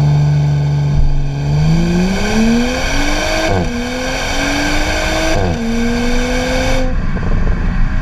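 Exhaust of a 2018 Audi S5 Sportback's turbocharged V6, held at steady revs, then about a second in accelerating hard. The note climbs, drops sharply at two quick upshifts and climbs again. Near the end the exhaust note gives way to a rush of wind and road noise.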